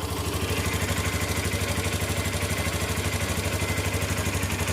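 Hero Xtreme 125R's single-cylinder 125cc engine idling steadily just after starting, with an even pulse. It is played so the listener can judge the extra engine noise that many owners have complained about.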